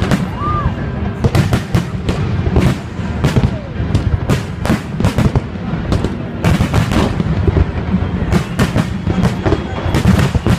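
Aerial fireworks shells bursting overhead in a dense, irregular barrage: about two dozen sharp bangs, several a second at times, over a continuous low rumble.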